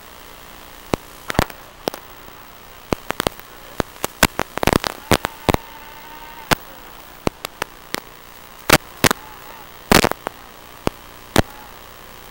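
Steady static hiss with irregular sharp crackles and pops, the sound of an analog FPV video link's audio channel as recorded from a 210-size racing quadcopter.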